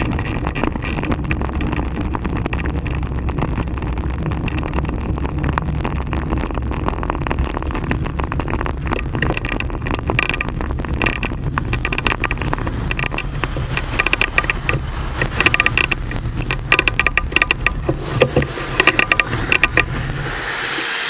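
A handcycle rolling along a road at speed: wind buffeting the microphone over road rumble, with rattles and clicks from the frame and cables over the tarmac. The rattling grows in the second half, and the low rumble drops away near the end.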